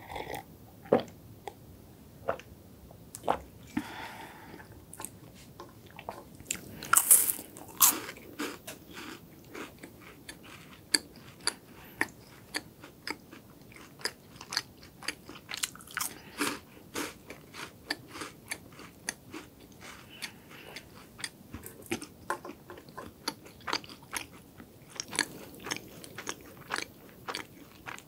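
Close-up biting and crisp chewing of a chocolate-coated hazelnut-cream wafer snack: sharp crunches several times a second, with the loudest bites about seven to eight seconds in.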